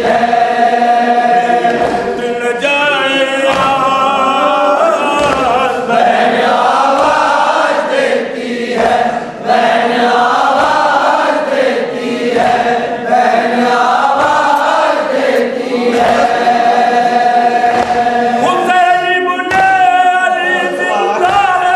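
A group of men's voices chanting a nauha, a Shia mourning elegy, in chorus, with long held, wavering lines.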